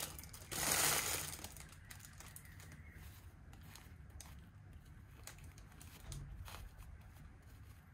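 Plastic packaging crinkling as it is handled, loudest about a second in, then tailing off to faint scattered rustles and clicks.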